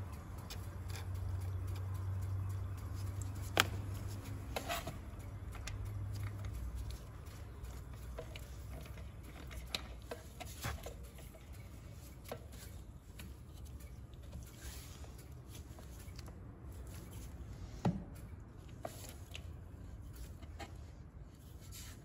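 Small scattered clicks and taps of a metal control rod being fitted into the plastic pivot of a Chevrolet Corsa Classic's manual side mirror. A low steady hum runs under them for the first seven seconds or so, then stops.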